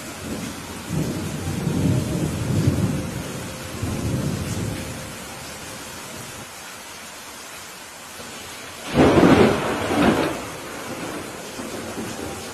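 Thunderstorm: steady rain hiss with a low, rolling thunder rumble starting about a second in and lasting several seconds, then a louder, sharper thunderclap about nine seconds in.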